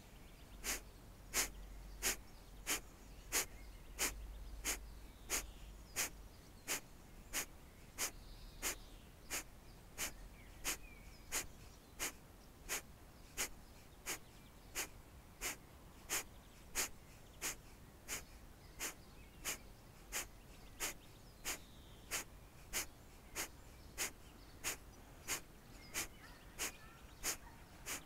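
Kapalabhati (breath of fire) breathing: short, forceful exhalations through the nose, about three every two seconds in a steady rhythm, each a sharp puff, with quiet passive inhalations between.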